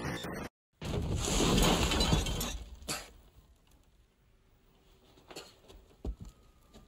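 Film sound effects: a short glitchy electronic burst, then a loud rushing crash lasting about two seconds as a body tumbles out of a fireplace onto a floor in a cloud of soot, followed by a thud and a few fainter knocks and scuffs.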